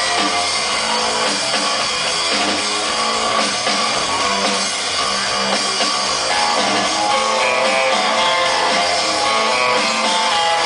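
Live rock band playing a guitar-led instrumental intro, with electric guitar over bass and drums, heard loud and steady through a concert PA.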